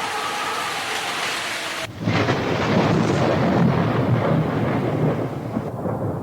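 Rain falling with an even hiss, then, about two seconds in, an abrupt change to a louder, low rumble of thunder over the rain that eases off near the end.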